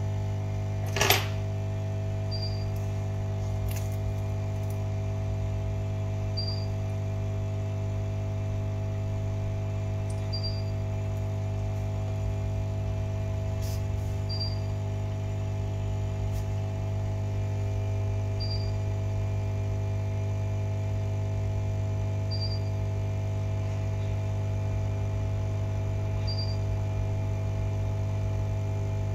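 Steady electrical hum made of many constant tones, with a short high beep repeating about every four seconds and one sharp click about a second in.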